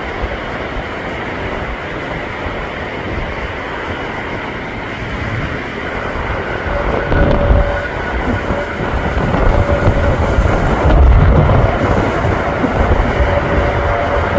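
Airbus A380's four Engine Alliance GP7200 jet engines, a steady deep rumble and rush that swells louder about halfway through, with a faint steady whine coming in over it.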